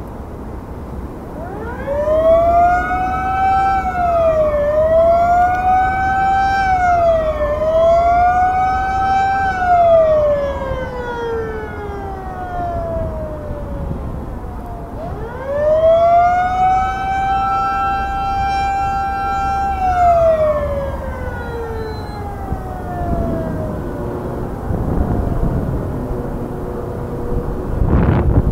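Drawbridge warning siren, a motor-driven wail sounding as the railroad bascule bridge is raised. It winds up, rises and dips three times, then falls away. After a short gap it winds up again, holds one steady pitch for a few seconds and winds down. A low rumble of traffic runs underneath.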